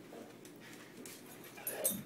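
Faint dog sounds: a short whimper with light clicks about one and a half seconds in.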